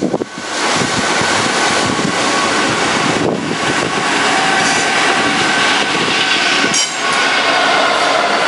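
A Class 66 diesel locomotive, with its two-stroke V12 engine, is running loud as it draws a heavy aggregate train close past. The rumble of the loco and its hopper wagons swells in the first half second and then holds steady, with a steady whine running through it.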